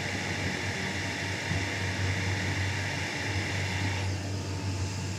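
Steady low machine hum with a hiss over it, like a running kitchen fan; the hiss drops away about four seconds in.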